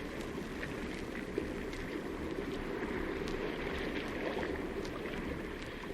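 Seals in a sea cave: a steady, dense wash of sound, with water and seal calls blended together and a few faint short clicks.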